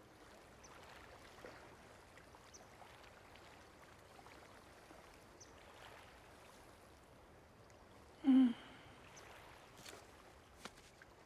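Faint harbor ambience of lapping water. About eight seconds in, one short low pitched sound slides slightly down in pitch, and a few light clicks come near the end.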